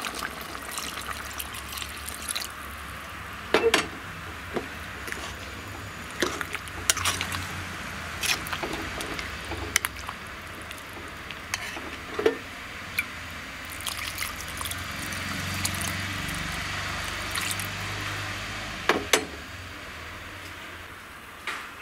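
Water poured from a vessel into an aluminium kadai of sambar, splashing into the lentils and vegetables. A steel spoon then stirs the pot, knocking sharply against the pan a handful of times.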